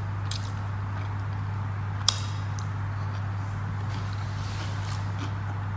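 A person chewing a mouthful of food with soft mouth noises and a sharp wet click about two seconds in, over a steady low hum.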